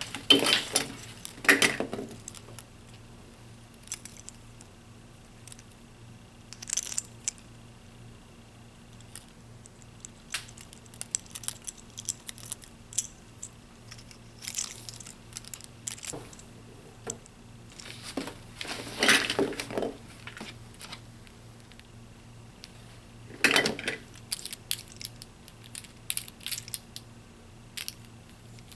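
Small plastic toys and packaging being handled: scattered clicks, rattles and rustles, with louder clusters of handling noise at the start, about two-thirds of the way through and shortly after. A faint steady hum runs underneath.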